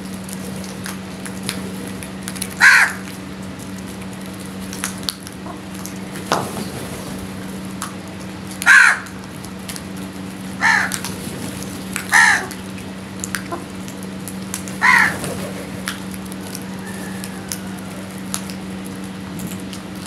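House crows cawing: five loud single caws at irregular intervals, the last about three quarters of the way through. Under them run a steady low hum and scattered small ticks.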